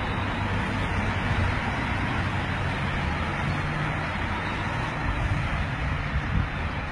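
Cars of a motorcade driving past on the road, making a steady rush of traffic noise.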